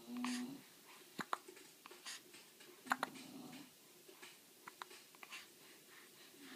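Hiccups: two short, low, voiced hiccup sounds, one at the start and one about three seconds later, with sharp clicks and crackles between them from a fire.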